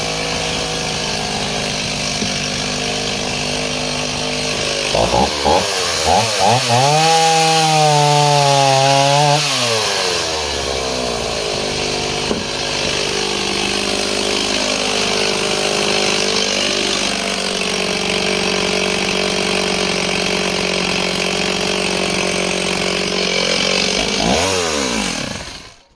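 Two-stroke chainsaw idling, given a few quick throttle blips about five seconds in, then revved up high for about three seconds and let back down to idle. Near the end it is blipped once more and switched off, the engine stopping abruptly.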